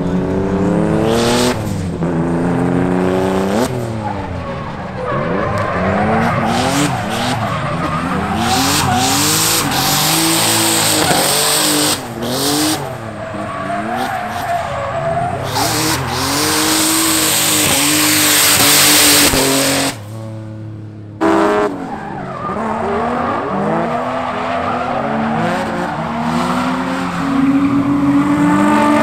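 Drift car engines revving hard, the pitch climbing and falling over and over as the throttle is worked, with tyres squealing and skidding as the cars slide sideways. The tyre noise is loudest about two-thirds of the way through, and the sound drops away briefly just after that.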